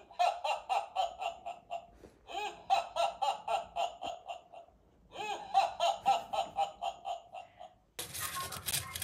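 Action Kamen character alarm clock playing its alarm: a recorded voice laughing 'ha-ha-ha-ha' in three bouts of quick, even laughs with short pauses between them.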